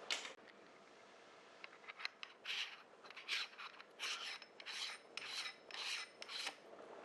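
A series of short rasping, rubbing strokes: one sharp scrape right at the start, then about eight more in quick succession from about two seconds in. They sit over the faint steady hiss of a Canon C70 camera's cooling fan.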